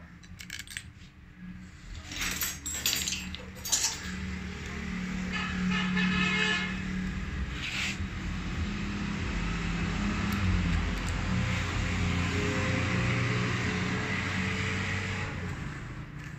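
A few sharp metallic clinks, like small metal parts being handled. About four seconds in, a steady machine-running sound with a low hum and a hiss starts and grows louder, then carries on evenly.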